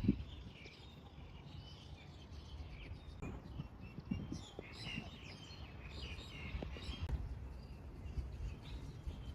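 Small birds chirping and calling, with many short, repeated chirps, over a steady low background rumble.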